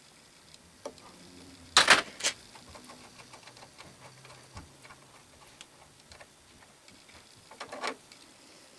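Metal tools and parts clinking and clanking as a wrench loosens the arbor nut and the finished gear is taken off the arbor, with light ticks throughout. There is a loud cluster of clanks about two seconds in and another near the end.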